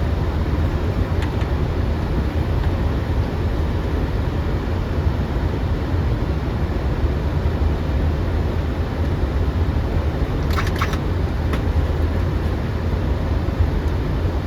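Steady cockpit noise of an Airbus A330 on final approach: a low rumble with an even airflow hiss over it. A short burst of clicks comes about ten seconds in, and a single click shortly after.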